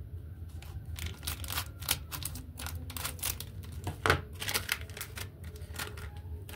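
Foil instant-cappuccino sachet crinkling and crackling as it is handled: a quick irregular run of sharp crackles, loudest about two-thirds of the way through, over a low steady hum.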